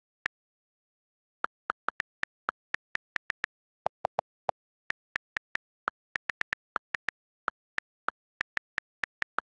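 iPad on-screen keyboard key clicks: a quick, irregular run of about thirty short clicks as a message is typed. About four seconds in, a few deeper clicks come in a quick cluster, typical of the iOS delete key as a mistyped word is erased.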